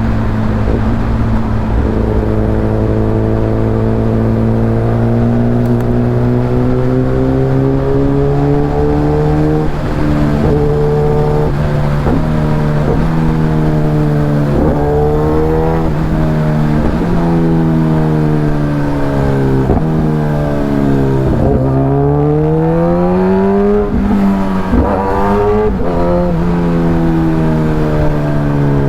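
Kawasaki Ninja ZX-10R's inline-four engine, heard onboard, accelerating hard through the gears: its pitch climbs and then drops at each gear change, about a dozen shifts.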